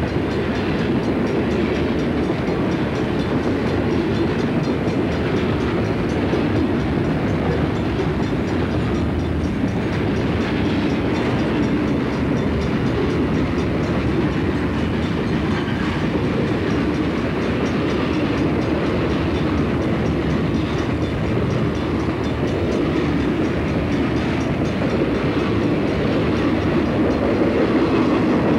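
Southern Pacific freight cars, boxcars and a lumber-loaded flatcar, rolling past: a steady, unbroken noise of steel wheels on rail, a little louder near the end.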